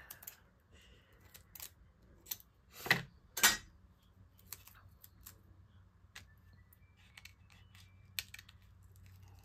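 Scattered light clicks and taps of hands working paper card stock and tape, with a few louder brief rustling strokes around three seconds in.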